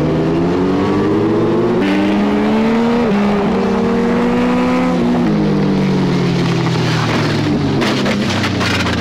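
Motorcycle engine accelerating through the gears, its pitch rising with two upshifts, then the revs falling steadily as it slows. A burst of rough, crackling noise comes near the end.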